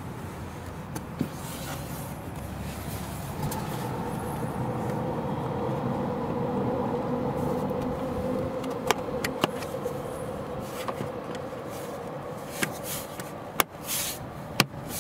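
Plastic dashboard side trim panel being pressed back onto a Volvo XC40's dash, its clips snapping into place with several sharp clicks in the second half. A steady background hum runs underneath and swells in the middle.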